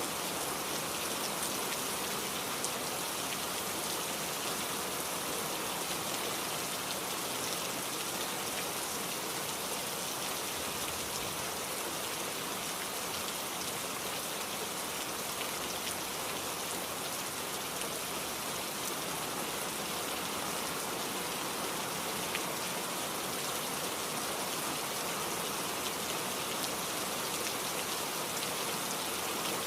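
Heavy rain falling steadily, a constant even hiss with fine scattered drop ticks.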